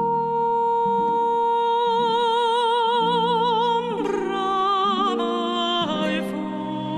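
Music: a long high held note that takes on a wavering vibrato, then slides down about four seconds in and moves through several shorter notes, over sustained low chords.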